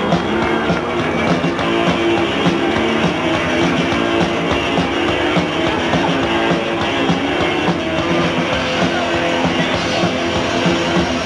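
Garage rock band playing loud electric guitars over a drum kit with a steady beat.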